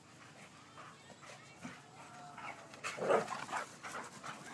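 Two boxer dogs vocalizing as they play rough: short whines, then a louder burst of barking about three seconds in.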